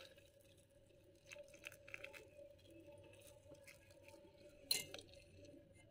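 Faint pattering of liquid flan mixture poured in a thin stream onto sponge cake pieces in a mould, with one sharper click about three-quarters of the way through and a faint steady hum underneath.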